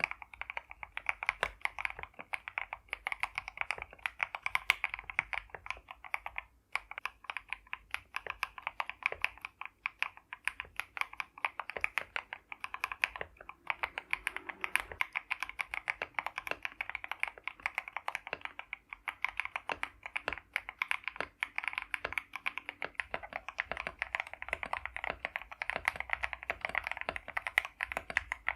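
Continuous fast typing on a mechanical keyboard fitted with lubed Akko switches: a dense run of sharp key strikes, with short breaks about six and thirteen seconds in.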